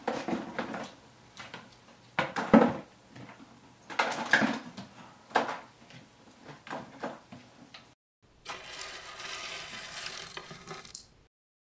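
Irregular clicks, knocks and scrapes of small hard objects on a wooden tabletop, with the loudest knocks about two and a half and four seconds in. Near the end a steady rushing noise runs for about three seconds and then cuts off suddenly.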